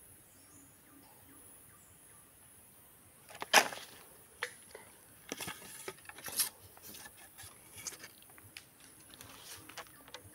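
Quiet forest background with a few faint high bird chirps, then from about three seconds in a run of close knocks, rustles and scuffs, the loudest one just after they begin. These are the handling and movement noises of a person shifting a fishing rod and stepping through streamside undergrowth.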